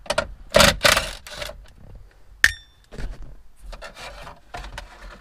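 Scraping and rubbing of the factory radio and plastic dash trim as the radio is worked loose from a 1999 Dodge Ram's dashboard, in irregular strokes that are loudest in the first second and a half. One sharp metallic clink rings briefly about two and a half seconds in.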